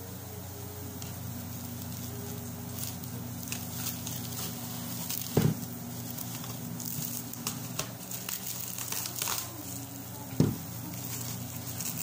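Plastic cling film crinkling and crackling as it is pulled from the roll and wrapped around a bundle of uncooked samosas. Two dull thumps stand out, about five seconds in and again about ten seconds in.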